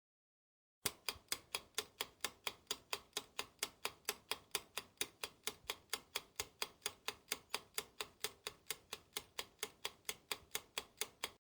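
Ticking clock sound effect: quick, even ticks, about four or five a second, starting about a second in.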